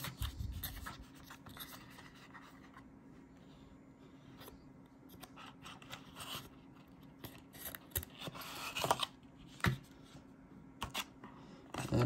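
Paperboard box being opened and handled: lid flaps and inner tray sliding and scraping, with scattered light taps. There is a burst of rustling about two-thirds of the way through and a sharp tap shortly after.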